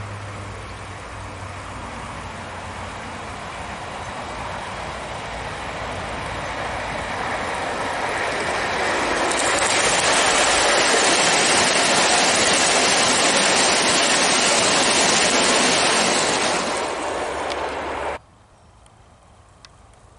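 Gauge 1 model of a Stanier Coronation Pacific and its coaches running on the track, a rushing, rattling noise that grows louder as the train comes up to the microphone. It stays loud for several seconds as it passes, then cuts off abruptly near the end.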